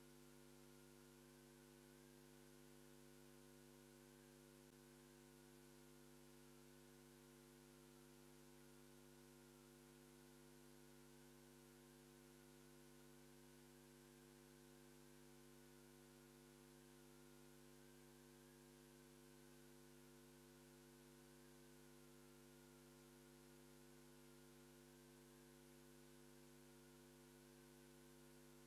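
Near silence: a faint steady electrical hum over hiss.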